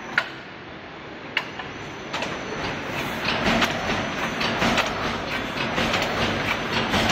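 Wire mesh welding machine starting up: a few sharp clicks, then from about two seconds in a dense, rapid crackling clatter that grows louder as the machine's resistance-welding electrodes weld the cross wires onto the line wires.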